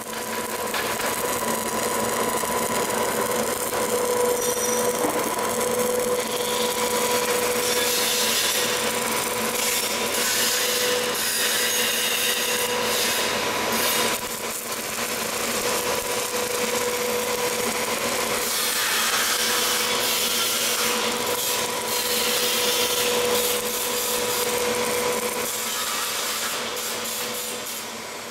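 A fan-driven fogging machine running and blowing out fog: a steady rushing hiss over a steady hum. The sound dips briefly about halfway through and fades out at the end.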